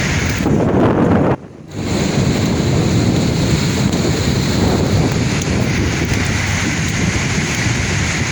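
Sea waves washing and breaking, with wind buffeting the microphone. The sound drops out sharply for a moment about a second and a half in, then comes straight back.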